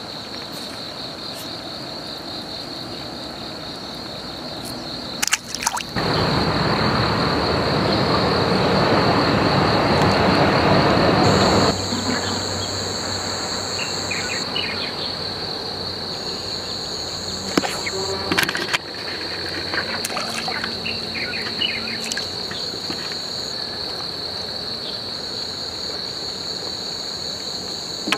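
Insects trilling steadily at a high pitch beside the water. From about six seconds in until about twelve, a louder rushing noise covers it, and there are a few short clicks.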